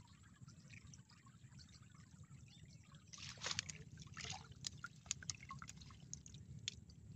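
Water trickling and dripping off a fishing net lifted out of shallow muddy water, then, from about three seconds in, a run of sharp wet splashes and clicks.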